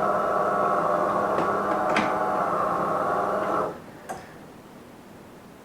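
De'Longhi Eletta ECAM44.660.B bean-to-cup coffee machine running with a loud, steady mechanical hum that cuts off suddenly a little over halfway through, followed by a single click.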